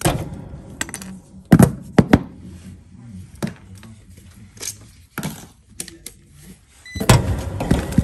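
Handling knocks and clicks: pliers working a run capacitor's metal spade terminals and the capacitor knocking on a plywood surface, several sharp clicks close together about one and a half to two seconds in. A denser run of clattering and rustling near the end as a clamp meter is picked up.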